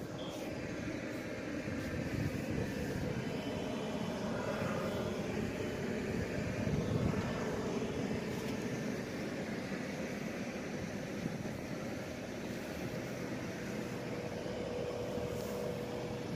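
Koleje Śląskie Pesa Elf electric multiple unit running along the platform, with wheel rumble and motor noise. A steady whine comes in near the end as the train slows to a stop.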